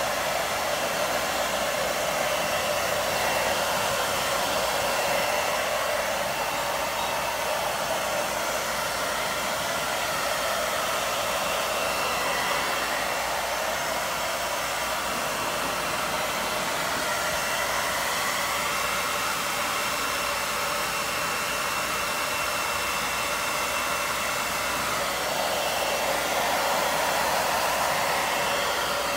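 Handheld hair dryer running steadily: an even rush of blown air with a faint, steady high tone.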